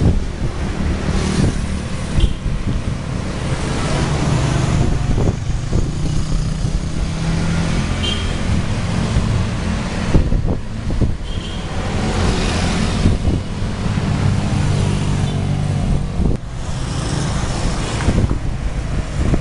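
Street traffic heard from an open cycle rickshaw: motor scooter and car engines running close by, with wind on the microphone.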